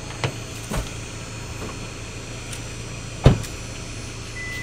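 A car door shutting with one solid thump about three seconds in, after a few lighter knocks, over a low steady hum. A steady high tone starts near the end.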